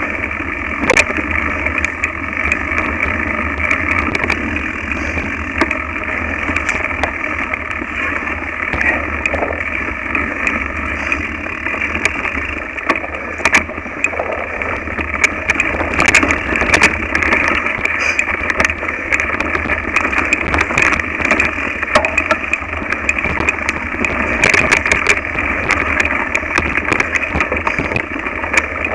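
Mountain bike on a bumpy dirt trail, heard through a handlebar-mounted camera: steady tyre and chassis noise with frequent sharp knocks and rattles as the bike is jolted.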